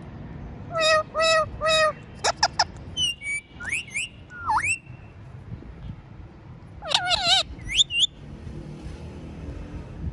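Pet parrot calling: three short, even calls about a second in, then a quick run of chirps and rising and falling whistles, and another burst of warbling calls around seven seconds in.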